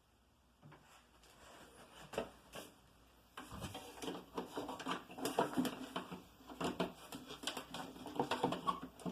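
Footsteps in soft house slippers on a hard indoor floor: a run of irregular soft taps that starts about two seconds in and gets busier and louder after about three and a half seconds.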